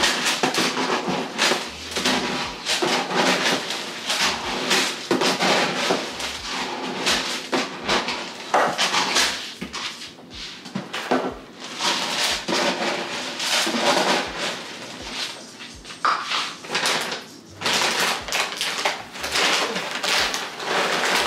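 Dry dog kibble rattling and pouring into a metal storage bin, over background music with a steady beat.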